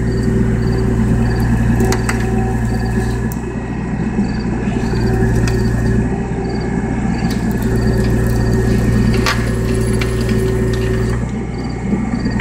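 Skid steer engine running steadily, its level swelling and easing a little, with scattered metallic clicks and squeaks from the tree spade attachment.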